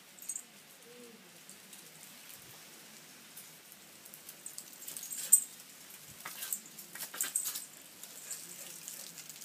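Jack Russell puppy's claws clicking and scrabbling on a tiled floor as it pounces and paws at a bug: scattered sharp ticks and short scuffs, denser in the second half and loudest about five seconds in.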